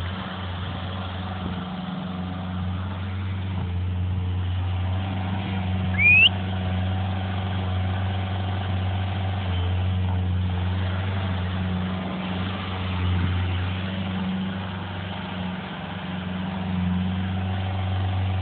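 A heavy machine's engine running steadily at a low, even hum. About six seconds in there is a short, loud, rising whistle.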